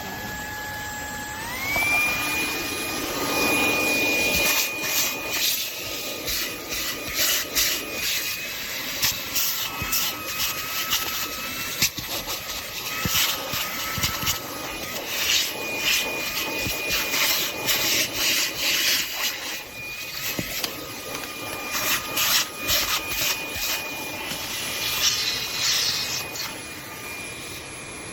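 Fanttik Slim V8 Apex cordless handheld vacuum running with a high, steady motor whine that steps up in pitch about a second and a half in, then cuts off suddenly at the end. The nozzle scrapes and clicks against a surface as it picks up debris.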